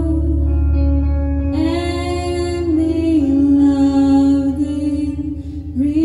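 A woman singing slow, long-held notes with a live band, over electric guitar and bass; a new phrase begins about one and a half seconds in, and another near the end.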